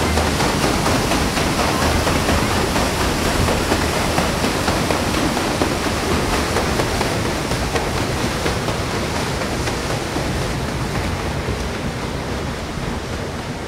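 Steady rushing, churning water from the paddle steamer Waverley's paddle wheels, easing off slightly near the end.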